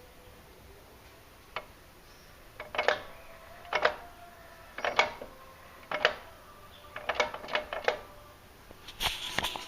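Metallic clunks from a 2006 VW Polo 1.6's transmission and drive shaft as the right wheel is rocked back and forth by hand, about once a second, then a quick cluster of knocks and a short rattle near the end. The knocking is play in the driveline, which the owner suspects is a worn drive shaft joint (tripod or universal joint).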